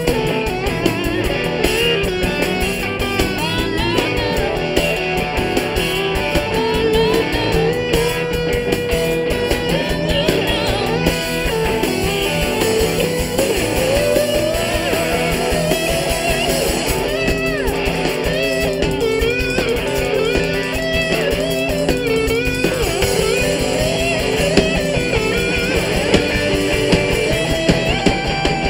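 Live rock band playing with a steady beat: electric guitar, electric dobro, bass guitar and drum kit, with the lead lines sliding and bending between notes.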